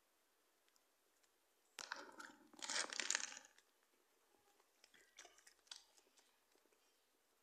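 Plastic bag crinkling as food is handled in it: a loud rustling burst about two seconds in that lasts over a second, then a few shorter crackles.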